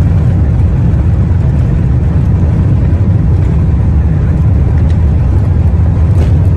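Cabin noise inside a Boeing 787-8 rolling along the ground: a loud, steady low rumble from the airliner's engines and its wheels on the pavement.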